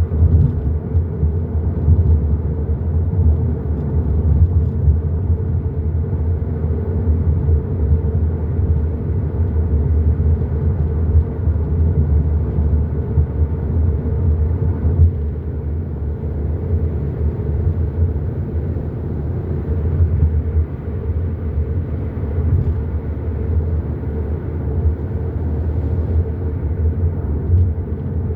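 Hyundai i30 N Line driving at a steady pace: a continuous low rumble of engine and road noise, easing slightly about halfway through.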